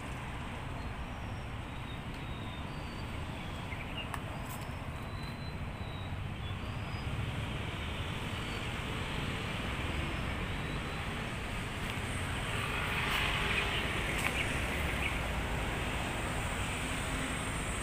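Steady rumble of a moving vehicle with road and wind noise, swelling louder about thirteen seconds in.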